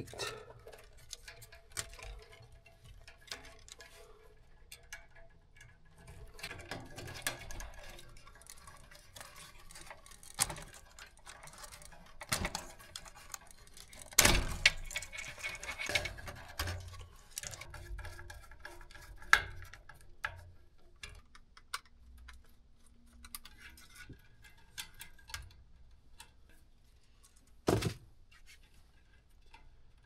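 Scattered clicks, taps and light clatter of hands handling tools and parts at a furnace. A louder knock comes about halfway through and another near the end.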